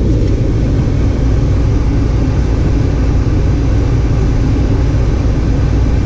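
Lennox G51 gas furnace running with its draft inducer pulling: a steady low rumble.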